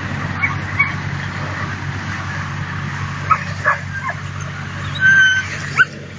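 Dutch Shepherd puppies yipping at play, with a few short high cries and a brief high whine about five seconds in, over a steady low hum.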